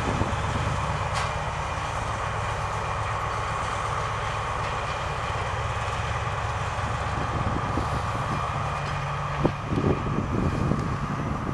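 Slow diesel work train passing: the steady drone of the locomotive engines with the rumble of wagons rolling on the track. A sharp knock about nine seconds in, followed by a few clanks, is the loudest sound.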